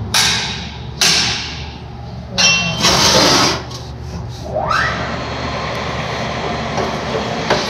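A few sudden loud bangs or bursts of noise, each dying away within about half a second, then a steady mechanical din with a low hum setting in about halfway through.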